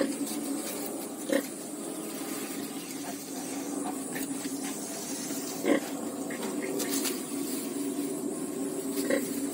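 Pigs grunting low and steadily as newborn piglets suckle at a sow. Three short, louder grunts or squeaks break through: about a second in, a little past the middle (the loudest), and near the end.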